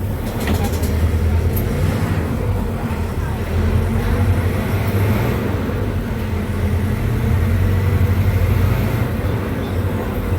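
MAN D0834 four-cylinder inline diesel engine of a Volkswagen 17-230 OD bus running, a deep steady drone that swells slightly a couple of times.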